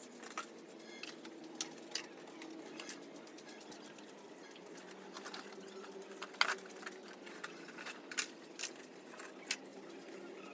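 Broiler chickens in their shed: scattered sharp pecking clicks, one louder knock a little past six seconds in, over a steady low murmur.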